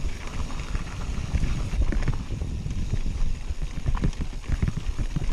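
Mountain bike descending rough dirt singletrack at speed: a dense, irregular run of rattles and knocks as the bike and its components take rocks and ruts, over a low wind rumble on the microphone.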